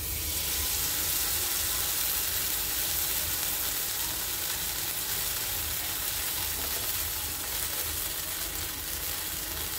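Oats, spinach and paneer batter sizzling steadily in hot oil in an iron kadai, the sizzle starting suddenly as the batter is dropped into the pan.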